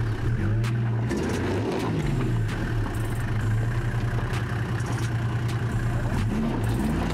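Toyota Land Cruiser 76's V8 diesel engine revving up and down under load as it struggles on a rocky climb, its wheels slipping without traction control, with scattered clicks and crunches of stones.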